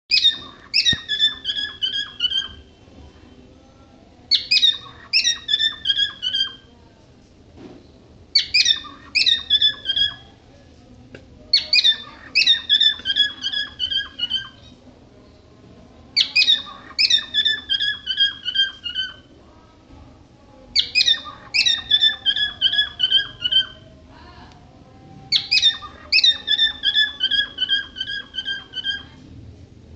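A bird calling in repeated bursts. Each burst is a quick run of six to eight short, high chirps, each sliding down in pitch, and a new burst starts about every four seconds.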